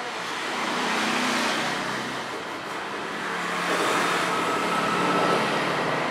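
Vehicle running noise: a steady low engine-like hum under a rushing rumble that swells twice.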